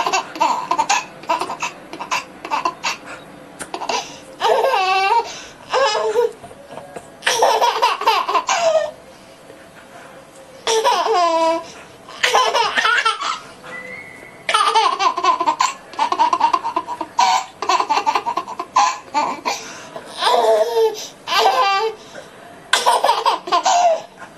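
A baby laughing in repeated fits, with short pauses between them.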